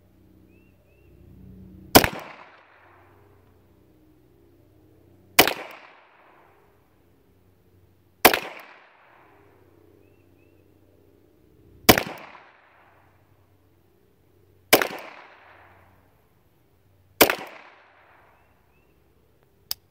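High Standard H-D .22 LR semi-automatic pistol fired six times at a slow, deliberate pace, one shot every three seconds or so, each crack trailing off in a short echo. A faint click just before the end comes as the pistol fails to fire the next round.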